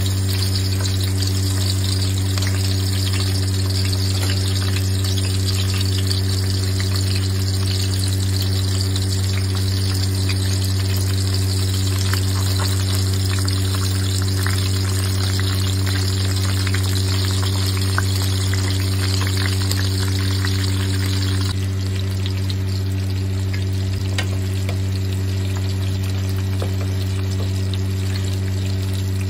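Chicken pieces shallow-frying in hot oil: a steady sizzle with fine crackles, which drops off suddenly about 21 seconds in. Under it runs a loud, steady low hum.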